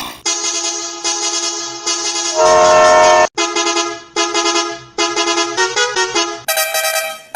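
Multi-tone 'telolet' bus horn sounding a series of held musical blasts, some stepping between pitches like a short tune, with one louder chord-like blast about two and a half seconds in.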